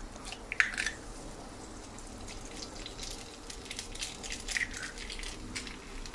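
A hen's egg cracked with a sharp knock about half a second in, then dropped into hot oil in a nonstick frying pan, where it and the hash browns sizzle with scattered crackles and spits.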